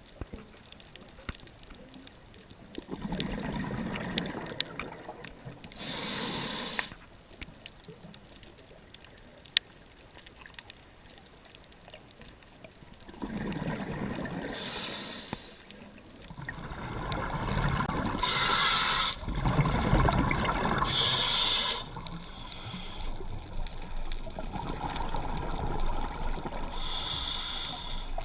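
Scuba diver breathing underwater through a regulator: a few slow breaths several seconds apart, each a hissing inhale and a bubbling exhale.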